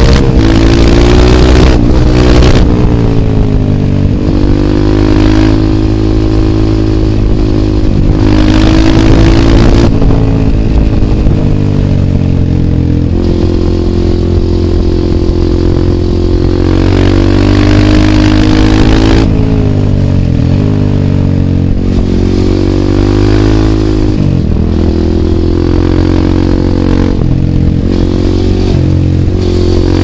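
Husqvarna 630 supermoto's single-cylinder four-stroke engine, heard on board, running hard through bends: its note falls sharply and climbs again several times as the throttle is closed and reopened.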